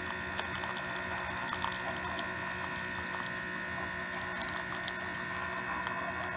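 Single-serve pod coffee brewer running steadily, its pump humming as a thin stream of coffee pours into a ceramic mug, with a few faint drip ticks.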